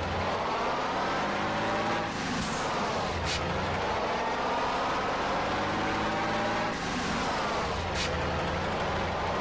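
Vehicle engine running, its pitch rising and falling in slow swells, with a couple of short sharp clicks.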